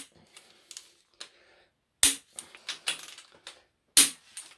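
Click-type torque wrench on ARP crankshaft main-cap bolts giving sharp clicks about every two seconds, with faint ratchet ticking between them. Each click marks a bolt reaching its final 60 ft-lb (82 Nm) torque.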